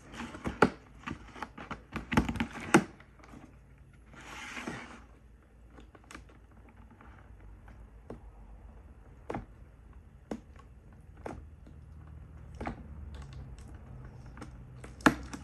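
Cardboard box being handled and opened: a quick run of clicks and taps from the lid flap and tabs, a short rustle about four seconds in, then scattered single taps.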